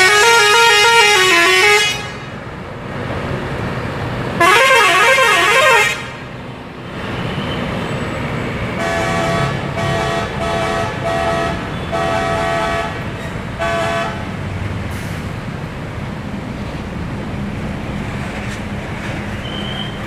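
Tour bus telolet horn, a multi-tone musical horn, playing a tune that steps up and down in pitch at the start and again about four seconds later, then a run of about six short, even toots between roughly nine and fourteen seconds in. A bus diesel engine runs underneath throughout.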